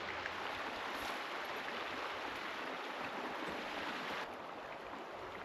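Salmon River water flowing past the bank, a steady rushing hiss that turns a little quieter and duller about four seconds in.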